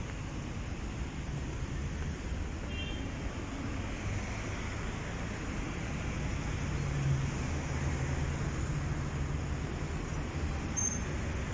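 Steady city traffic noise from cars on the road beside the path, a low continuous rumble, with one vehicle's engine passing louder about seven seconds in.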